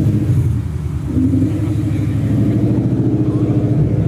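Ford Mustang's engine and exhaust giving a steady low rumble as the car rolls slowly past and pulls away at low speed.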